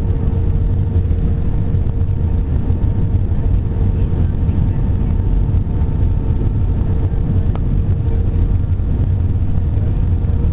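Jet airliner cabin noise on approach for landing: the engines and the air rushing past the fuselage make a loud, steady low rumble, with a steady hum above it. There is a single brief click about seven and a half seconds in.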